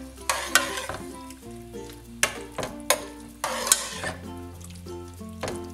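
Metal spoon stirring chicken pieces in melted butter in a stainless steel pot, with sharp knocks and scrapes against the pot about six times and the food sizzling. Background music plays underneath.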